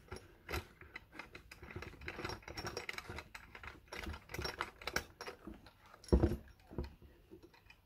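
Irregular small clicks and taps of metal parts being handled as a brass fixing nut is worked on the threaded brass shank of a chrome kitchen mixer tap, with one louder knock about six seconds in.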